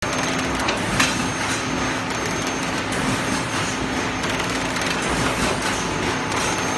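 LITAI TTF 520AF cup-lid thermoforming machine running, a steady hum under an irregular clatter of clicks, with one sharp click about a second in.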